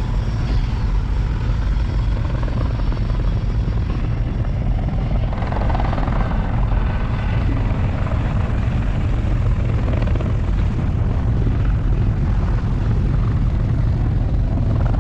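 Helicopter running steadily: a constant low drone of rotor and engine with no change in pitch.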